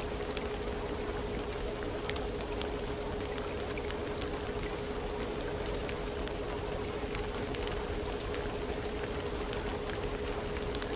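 Steady rain-like water noise with scattered faint drip ticks and one unchanging held tone underneath: the masking background of a layered subliminal audio track.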